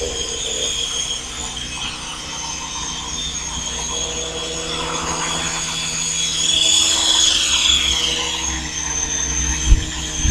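Modified model helicopter's motor and rotors whining steadily in a test flight. The whine swells and then slides down in pitch about seven to eight seconds in, with a sharp knock just before the end.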